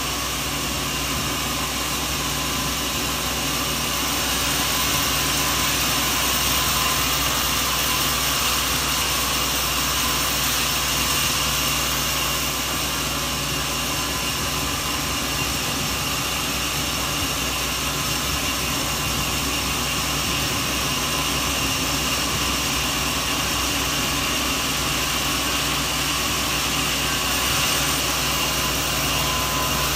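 Sawmill machinery running steadily: an even mechanical hiss with several held tones that does not change.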